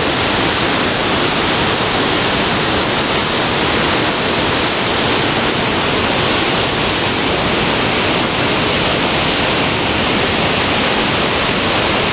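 Whitewater of the Spokane River running near flood stage: a loud, steady rush of churning rapids.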